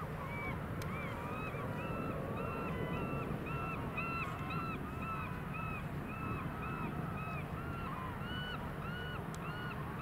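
A flock of gulls calling: many short, arched cries repeated and overlapping, a couple or more each second, over a steady low background rumble.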